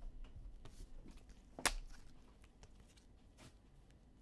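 Faint handling of trading cards and foil packs, cards sliding and rustling, with one sharp click about one and a half seconds in.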